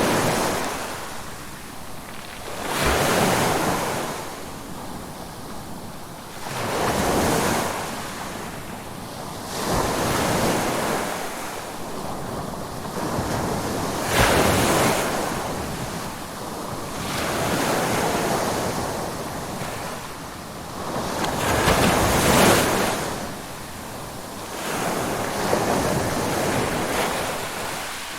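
Ocean waves breaking and washing up on a shore, each surge swelling and fading about every four seconds, with some wind noise.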